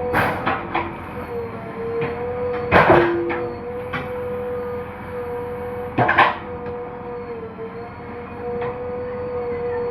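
JCB 3DX backhoe loader working, its diesel engine and hydraulics running with a steady, slightly wavering whine. Sharp knocks come several times just after the start, loudest about three seconds in, and again about six seconds in.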